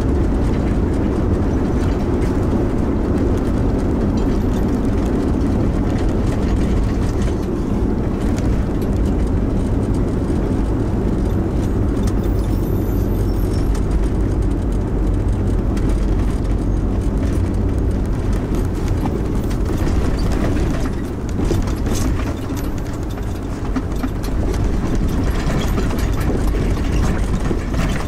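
Steady engine and tyre rumble of a car towing a caravan, heard from inside the cabin while driving on a narrow country road.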